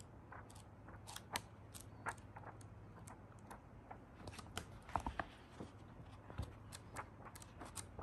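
Pages of a paperback book being turned by hand: a run of soft paper flicks and rustles, with a louder cluster about five seconds in.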